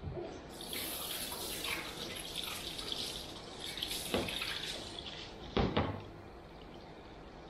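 Water running from a shampoo basin's hand sprayer over hair into the basin, a steady hiss that stops about five seconds in, followed by a couple of sharp knocks.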